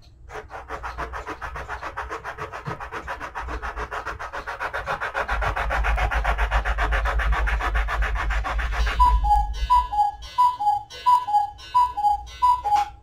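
A small wooden cuckoo-clock bellows board rubbed in fast back-and-forth strokes on an abrasive block, sanding off the old bellows paper and glue. Near the end the scraping stops and a two-note falling cuckoo call sounds several times in quick succession, as a cuckoo clock does when it strikes the hour.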